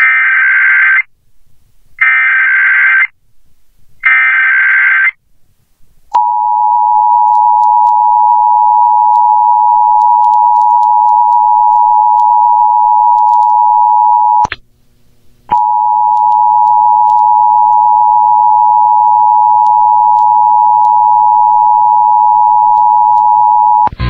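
Emergency Alert System test tones: three short bursts of screeching SAME digital header data about a second apart, then the steady two-tone EAS attention signal, which breaks off for about a second midway and resumes.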